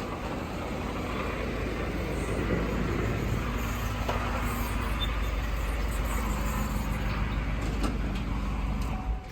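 Chevy 1500 pickup's V8 engine running steadily at low revs, then cutting off about 9 seconds in.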